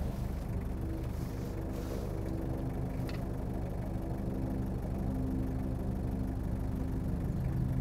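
Vehicle engine running with a steady low hum, heard from inside the cabin.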